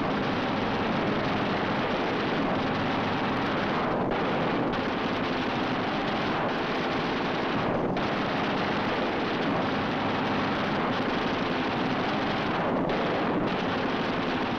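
Steady din of warplane engines and machine-gun fire from an aerial dogfight, one dense unbroken mass of noise that dips briefly a few times.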